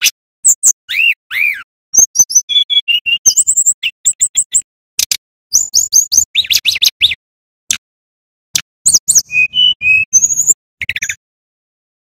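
Male brown-chested jungle flycatcher singing loudly: quick runs of short whistled notes that mix high thin chips with lower, falling slurred notes. The runs come in groups separated by short pauses, with a longer break a little after the middle.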